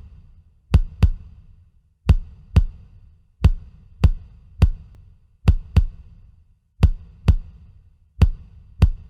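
Percussion played on glasses and bottles: a repeating beat of deep thudding strikes, mostly in pairs about every one and a half seconds, each with a sharp click on top.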